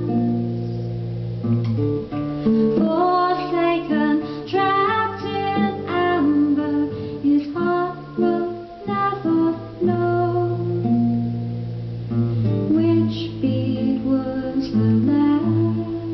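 Live acoustic music: a nylon-string guitar played with plucked notes and strums over held bass notes, with some singing.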